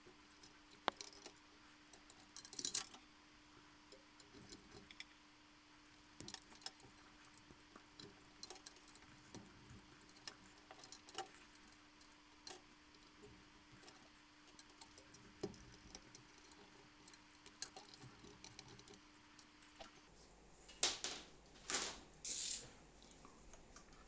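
Plastic pneumatic hose and push-in air fittings being handled with gloved hands: scattered light clicks and rubbing, with a few louder scraping rustles near the end.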